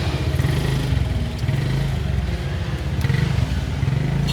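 An engine running steadily with a low hum, with faint clatter over it.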